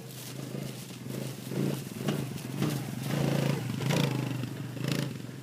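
ATV engine running steadily, with several short surges of throttle about every half second to a second.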